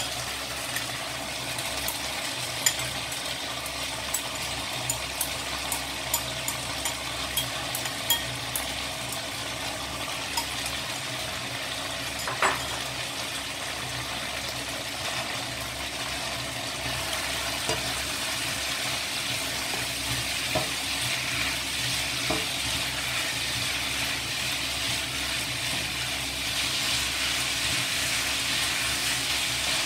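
Shredded chicken, shiitake and preserved mustard stem stir-frying in oil in a nonstick wok: a steady sizzle with scattered small pops over the first several seconds. The sizzle grows a little louder after about halfway, and a spatula stirs the food near the end.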